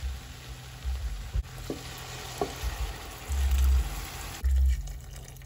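Lamb pieces sizzling in hot oil in a large aluminium pot while they are stirred with a silicone spatula. Hot water is poured in about four seconds in, and the sizzle dies away, with a couple of dull low thumps around the pour.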